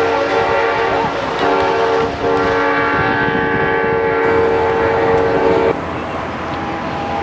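Locomotive air horn sounding a held chord, broken twice briefly, then cutting off sharply nearly six seconds in; the rumble of the passing train carries on after.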